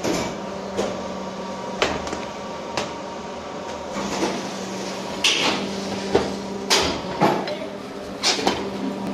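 Fly ash brick pan mixer running: a steady motor hum under repeated metallic knocks and clunks as the heavy roller wheel and scraper blades churn the damp mix in the steel pan. The knocks come about once a second at first, then turn into more irregular scraping and clatter.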